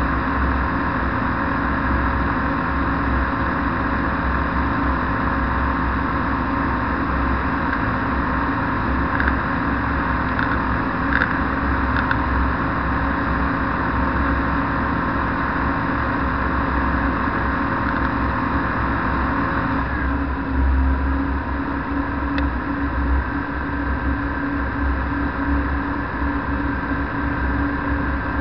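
Flexwing microlight trike's engine running steadily in flight, with wind rushing past the open cockpit. About two-thirds of the way through, the engine note shifts slightly.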